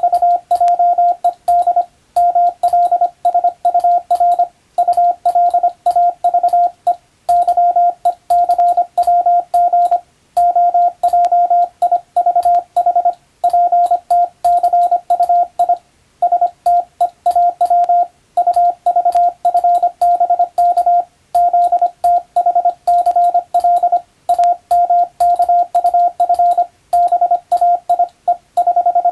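Morse code sent as a single steady beeping tone, keyed on and off rapidly in dots and dashes. Short silent gaps every second or two mark the spaces between words.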